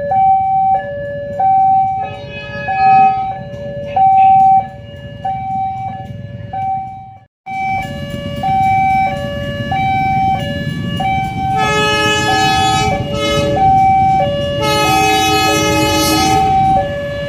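Railway level-crossing warning alarm sounding a steady two-tone signal, high and low alternating about every two-thirds of a second, warning of an approaching train. It cuts out briefly about seven seconds in. From about twelve seconds in, the approaching diesel locomotive's horn sounds over it in several blasts.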